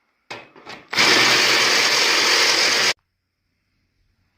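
Power tool cutting a nut off the steel welding table: a few short bursts, then about two seconds of loud steady cutting that stops abruptly.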